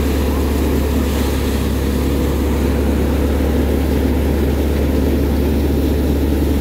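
Tractor-driven Landclass paddy thresher running steadily at work: the Mahindra tractor's diesel engine and the spinning threshing drum make one loud, unbroken drone.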